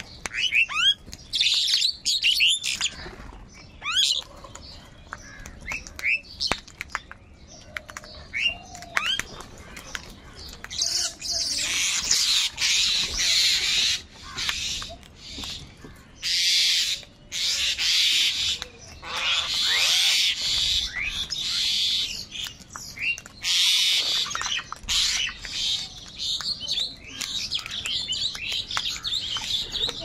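A flock of house crows calling over one another while squabbling over food. There are scattered short calls in the first ten seconds, then from about eleven seconds on a dense stretch of overlapping calls with brief breaks.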